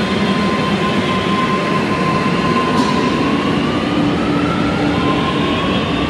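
Metro train running past a station platform with a steady rolling noise. Its motor whine rises in pitch from about halfway through as it gathers speed.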